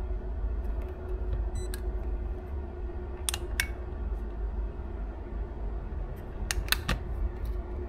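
Sharp clicks from a small ECU bench power-supply box as it is switched to power up the ECU board: two about three seconds in and three more close together near the end, over a steady low hum.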